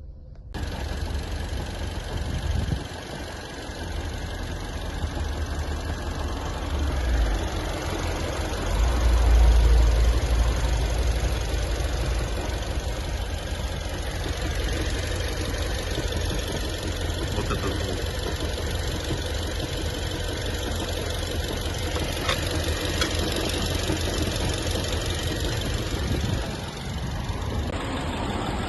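Omoda C5's engine running with a low rumble and a repeated knocking, the car shaking; the rumble swells louder about nine seconds in. The owner hears a 'kat-kat-kat' knock from the engine after starting and does not know its cause.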